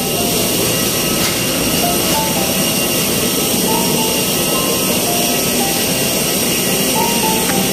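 Jet airliner noise on the apron: a loud, steady rush with several high, steady whining tones.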